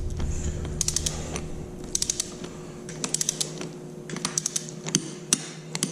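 Ratchet wrench clicking in a series of short bursts of quick clicks, about a second apart, as a bolt is tightened.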